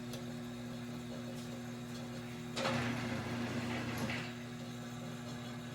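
Handling sounds at a glass lathe while corks in the chuck are adjusted: a few light clicks, then about halfway a scraping, rustling noise lasting about a second and a half that ends in a click, over a steady low hum.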